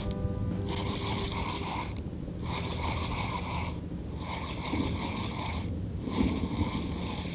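Spinning reel being cranked in four bursts of about a second each with short pauses between, its rotor whirring and scraping as line is wound in on a hooked fish.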